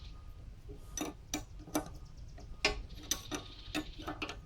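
Hand tools clicking and clinking against a backhoe's steel hydraulic fittings while a fitting is tightened back in: about a dozen sharp, irregular metal clicks.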